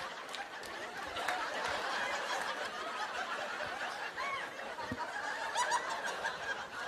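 Audience laughing steadily, many voices at once, after a comedian's punchline.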